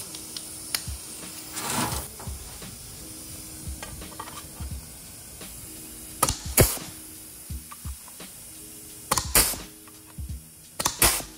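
Pneumatic punch-flange tool working sheet steel: sharp clunks, each with a hiss of air, in pairs from about six seconds in, over background music.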